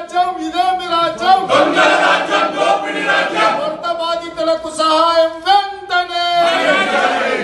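A group of protesters chanting slogans together, in loud, drawn-out shouted phrases.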